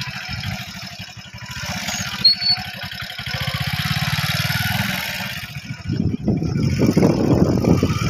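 Engine of a slow-moving vehicle running with a steady low putter, a brief high chirp about two seconds in. From about six seconds in, wind buffets the microphone and covers the engine.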